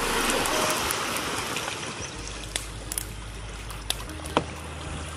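Shallow seawater splashing and lapping at a rocky shore as a person wades through it, loudest at first, with a few sharp clicks in the second half.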